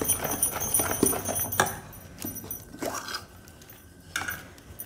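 Metal spoon stirring thick brownie batter in a stainless steel bowl, scraping and clinking against the bowl's sides as dry ingredients are mixed in. The clinks come irregularly for the first two seconds or so, then it goes quieter.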